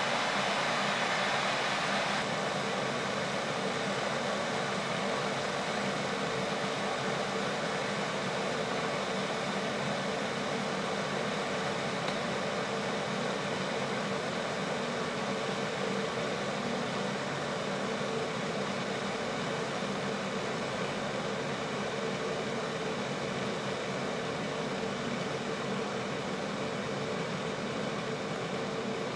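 Glass electric kettle heating water: a steady hiss as steam bubbles form on the hot element and collapse in the cooler water above, the noise of water heating toward the boil.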